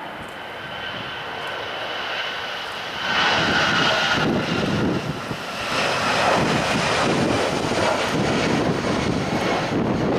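Airliner engines with a steady whine and a rushing noise as an aircraft passes close. The sound grows much louder about three seconds in and stays loud and uneven after that.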